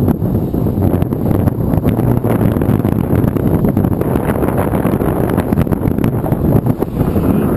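Wind buffeting a GoPro camera's microphone aboard a motorboat on choppy water: a loud, uneven rumble.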